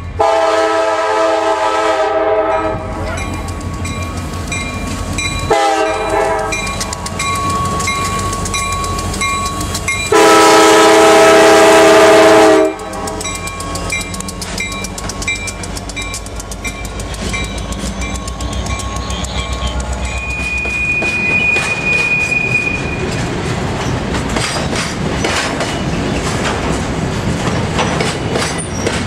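A freight train's locomotive horn sounds a long blast, then a short one, then a louder long blast as the train approaches. The diesel locomotives then pass close by, followed by hopper cars rolling past with wheels clicking over the rail joints, and a brief high wheel squeal about twenty seconds in.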